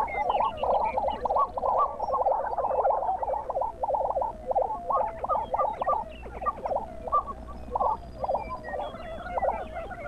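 Lesser prairie chicken males calling in courtship display on a lek: a dense chorus of many short, rapid, overlapping bubbling and clucking notes.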